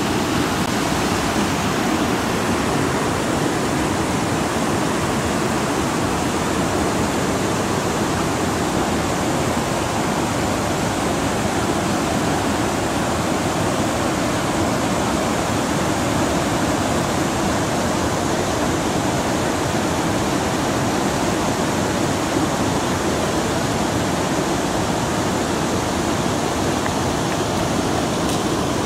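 Steady rush of river water pouring over a low weir, an even unbroken noise.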